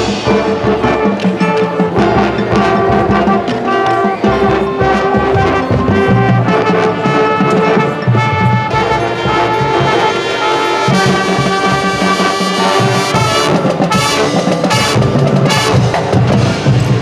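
Marching band playing a field show: brass section sustaining full chords over drumline percussion, with a run of sharp percussion hits near the end.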